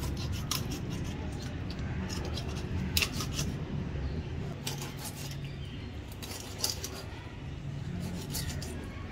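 A whole fish being cut into pieces with a metal blade: scattered sharp clicks and snips at irregular intervals, over a low steady hum.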